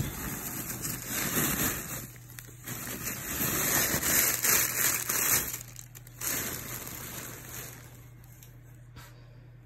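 Dry shredded straw packing in a cardboard box rustling and crackling as a hand digs through it. The rustling comes in spells, loudest in the middle, and dies away near the end.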